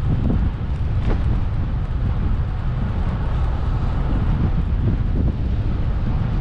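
Wind buffeting the microphone while riding: a steady, loud rumble with no clear engine tone, and a short tick about a second in.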